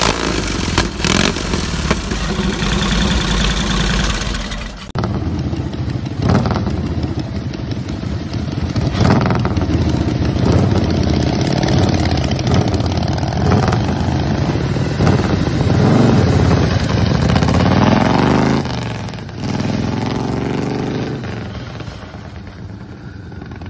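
Vintage Harley-Davidson motorcycle engine running loudly through a short open exhaust pipe. About five seconds in it gives way to vintage motorcycles revving and pulling away, their engine note rising in pitch twice as they accelerate, then fading as they ride off.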